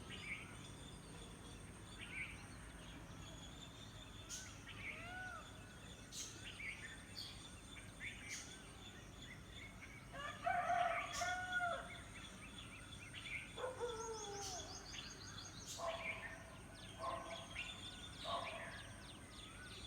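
A rooster crowing, loudest about halfway through, with a second crow a few seconds later that falls in pitch. Small birds chirp over a steady rural background.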